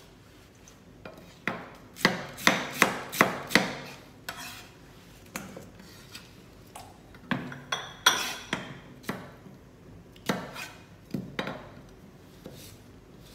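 Chef's knife chopping red cabbage and then slicing a cucumber on a plastic cutting board. About two seconds in comes a quick run of half a dozen sharp chops, followed by scattered single strikes and short groups of cuts.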